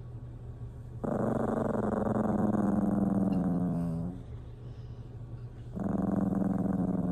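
A dog growls in two long, low stretches, the first about three seconds long and the second shorter near the end, each sinking slightly in pitch.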